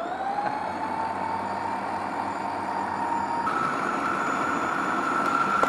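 Vidiem Tusker 750 W mixer grinder running, kneading atta dough in its food-processor jar. Its motor whine rises as it comes up to speed, then holds steady over a churning noise, and steps up in pitch about three and a half seconds in.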